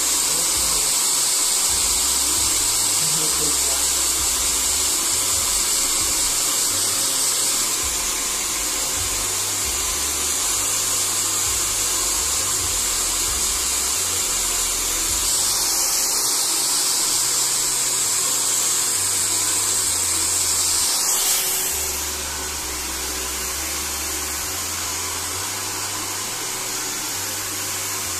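Handheld hair dryer blowing steadily on wet hair, a loud even rush of air with a high whine to it. Its level drops slightly about three-quarters of the way through.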